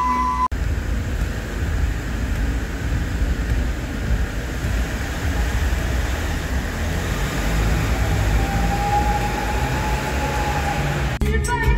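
Steady low road and engine rumble of a car being driven, heard from inside the cabin. Music comes in near the end.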